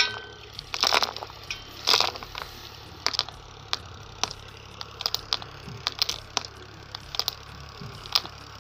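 Wheat grains dropping from the outlet chute of a homemade mini thresher model into a plastic bowl: scattered, irregular clicks and ticks over a faint low hum.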